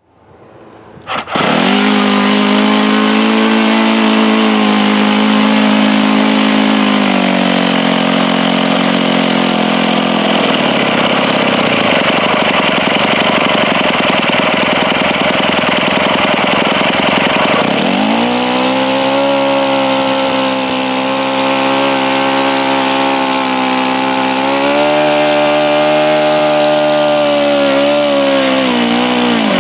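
OS FS-91 Surpass four-stroke model glow engine starting about a second in and running loudly, its speed changing: the pitch falls between about seven and ten seconds in, turns rough and noisy, then steadies again around eighteen seconds in. The engine's bearings are known by the owner to be bad.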